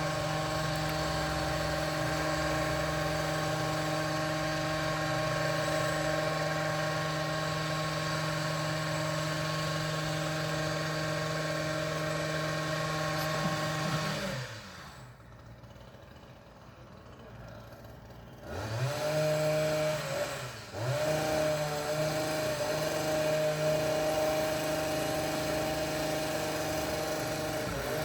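Small two-stroke petrol engine of a bush-trimming saw running at a steady speed. About halfway through it slows and drops away for a few seconds, then comes back with a rising rev, dips once briefly, and runs steadily again.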